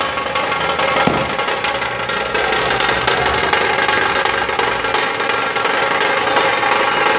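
A dhol tasha troupe playing: many large dhol barrel drums and small tasha drums beaten together in a loud, dense, continuous rhythm.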